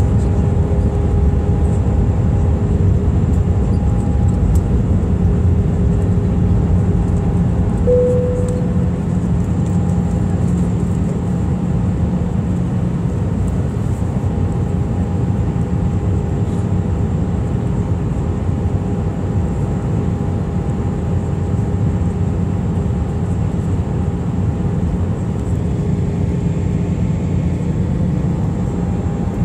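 Airbus A319 cabin noise on approach, heard from a window seat beside the wing: the steady drone of the engines and airflow, with faint steady whines on top. A short tone sounds once about eight seconds in.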